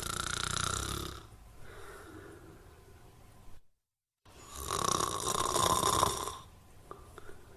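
Snoring: two loud snores, each about two seconds long and each followed by a few seconds of quieter breathing, with a brief moment of total silence between them.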